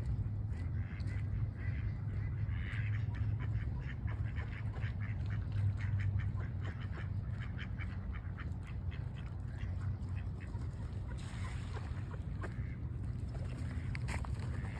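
Ducks quacking, many short calls one after another, over a low steady rumble.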